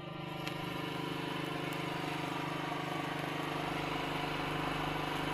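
An engine running steadily at idle, a constant even hum.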